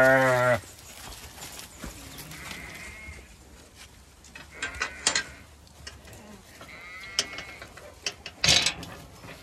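A flock of Zwartbles sheep bleating: one loud bleat at the start, then a few quieter bleats. Several sharp clicks and a loud knock come near the end.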